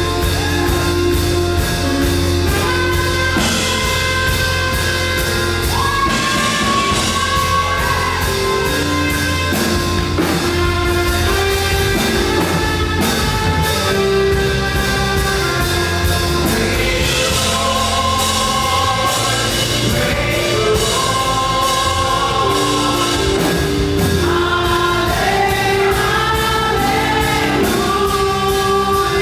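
Fast gospel worship song performed live: a group of singers over a band with a steady, driving drum beat.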